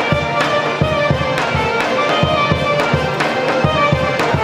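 Traditional folk dance music played live, with fiddle and accordion carrying a lively tune over a steady low beat of about three strokes a second.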